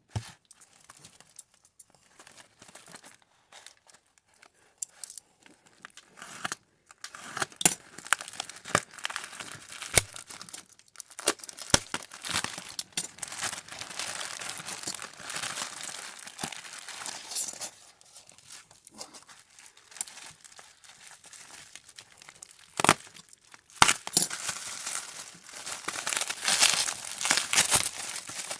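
Guitar pedal packaging being opened by hand: irregular crinkling and tearing of wrapping and box, with scattered sharp clicks and knocks. The handling gets busier and louder near the end.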